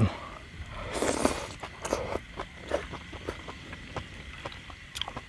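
Close-miked eating sounds: a man chewing a mouthful of sauce-dipped fresh greens, with wet smacking clicks at an irregular pace. A brief noisy slurp comes about a second in.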